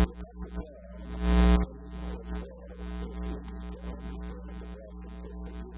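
Soft sustained keyboard pad music, held chords swelling twice near the start and then continuing quietly, over a steady electrical mains hum.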